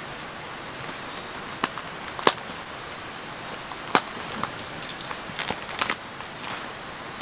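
Sharp clicks and knocks as a fabric pouch's clip is fitted onto the edge of a metal camp table: about five separate snaps, the loudest about two seconds in, over a steady hiss.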